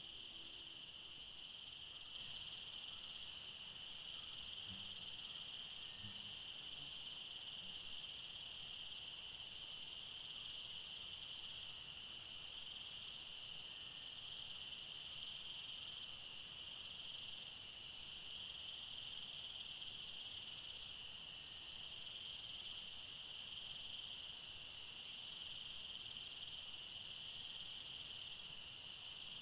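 A chorus of crickets chirping in a steady, unbroken high trill.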